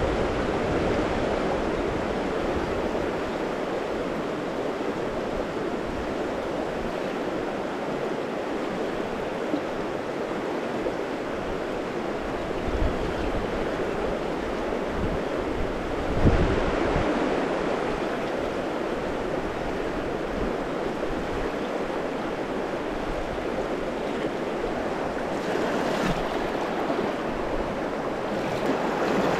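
Fast, shallow river riffle rushing over stones: a steady wash of water noise. A brief thump about sixteen seconds in, and a smaller one a few seconds earlier.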